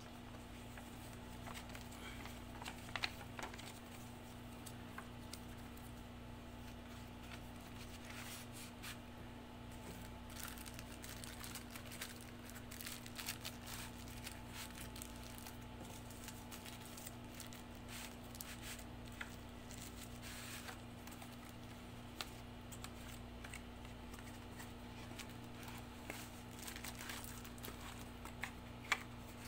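Cardboard packaging and a plastic bag rustling, crinkling and clicking as they are handled, with a few sharper clicks about three seconds in and near the end. A steady hum from an air-conditioning unit runs underneath.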